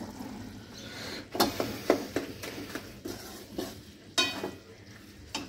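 Wooden spatula stirring cabbage curry in a metal wok, with scattered sharp knocks and scrapes against the pan, the strongest a bit over a second in and about four seconds in.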